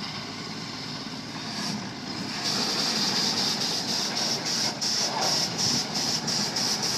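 Steam shovel's steam engine working, its exhaust hissing in rapid chuffs about two to three times a second. The chuffing starts about two and a half seconds in, over a steady low rumble of machinery.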